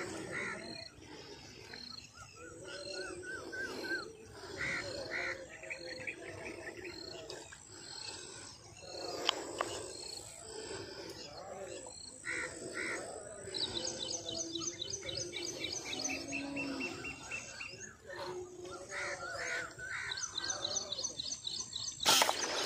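Birds calling and chirping around a pond, several different calls overlapping, with a fast run of high chirps in the middle. A sharp click about nine seconds in and a loud knock near the end.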